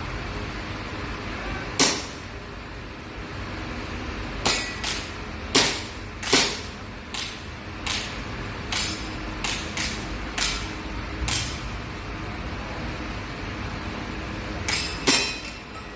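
BB air guns being fired: a string of sharp pops at irregular intervals, more than a dozen shots, some coming in quick pairs.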